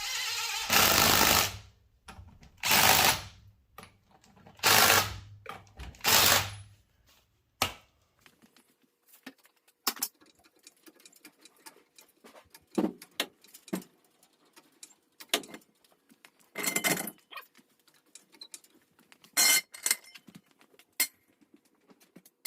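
Pneumatic impact wrench running lug nuts onto a truck wheel in four short bursts. After that come scattered light metallic clicks and knocks of tools and parts being handled.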